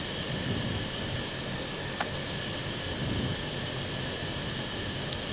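Steady cockpit noise of an Airbus A321neo on final approach with flaps fully extended: an even rush of airflow and air conditioning with a faint steady whine. A light click sounds about two seconds in and another near the end.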